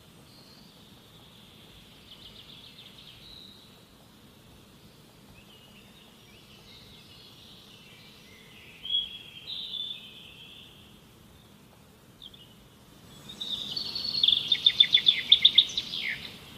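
Birds chirping and calling, with a loud, rapid trill of repeated notes near the end that finishes on a falling note, over faint low background noise.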